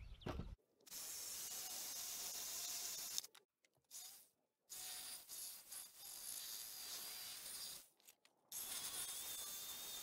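Power tool cutting into wood in three stretches, broken by sudden silences where the footage is cut. The last stretch is a corded Ryobi jigsaw sawing out the birdhouse's entrance hole, with a faint steady whine over the cutting noise.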